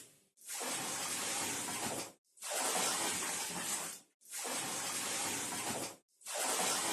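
Water pouring from a tap into a bucket, a splashing rush that comes in stretches of about two seconds, cut by brief silent gaps.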